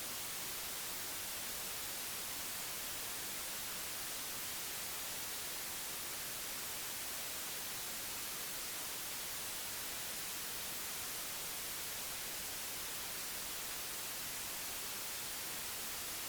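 Steady, even hiss of television-style static (white noise), brightest in the high end, with no tone or rhythm in it.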